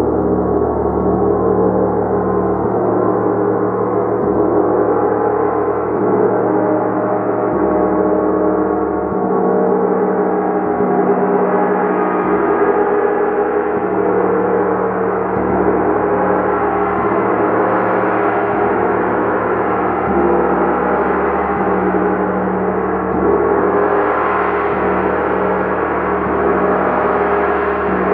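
A gong played continuously, its strokes merging into a loud, unbroken wash of many overlapping ringing tones that grows brighter near the end.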